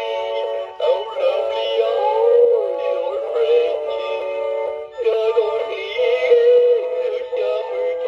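Gemmy Caroling Hound Dog animated plush singing a Christmas carol over backing music through its small built-in speaker. The sound is thin and tinny, with no bass, and there are short breaks between phrases about a second in and about five seconds in.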